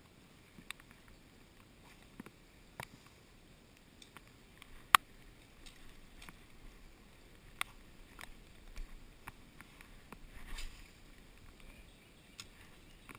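Faint steady hiss of moving river water, with scattered sharp clicks and taps of handling, the loudest about five seconds in.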